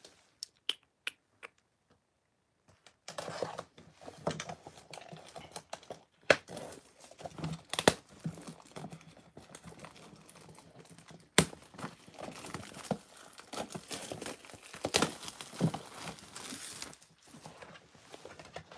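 Plastic shrink-wrap being torn and crumpled off a cardboard trading-card hobby box, a continuous crackle with several sharp snaps of the film. It is preceded by a few light clicks in the first second or so.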